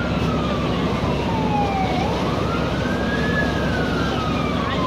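Emergency vehicle siren wailing in a slow rise and fall: falling, rising again about two seconds in, then falling once more, over a steady low rumble.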